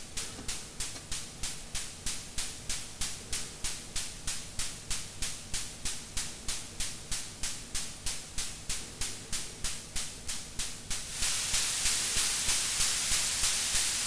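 White noise from a simple DIY modular-synth noise module, chopped by a VCA and a short attack-decay envelope into quick hi-hat-like hiss ticks, about three a second. About eleven seconds in, a louder, steady wash of noise from a second, LFO-swept VCA comes in under the ticks.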